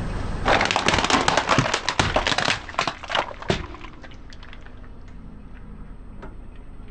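Dense crackling and snapping of something crunchy being crushed under a car tyre for about three seconds, dying away to a low steady hum with a few scattered ticks.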